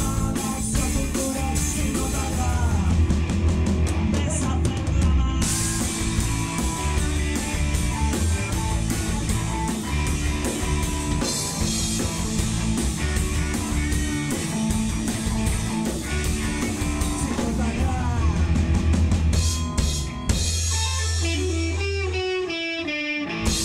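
Rock music with electric guitar, and a drum kit with Paiste PST cymbals played hard along with it: dense kick, tom and cymbal strokes. About twenty seconds in the drumming thins out, leaving a stepped run of notes.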